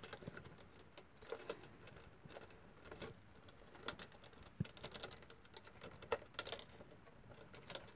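Faint, irregular clicks and crackles of a thin plastic PET bottle top being handled while an electric wire is threaded through a hole in its rim and twisted into a hook.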